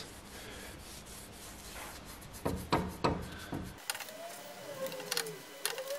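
A rag rubbing linseed oil onto the metal of a bench vise, with a few light knocks about halfway through and a thin wavering squeak near the end.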